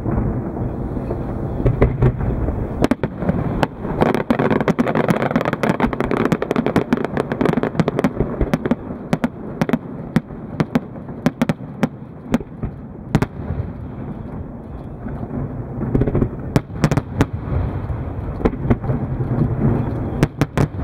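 Aerial fireworks shells bursting in quick succession: many sharp bangs and crackles over a steady low rumble, thinning out for a few seconds in the middle before picking up again.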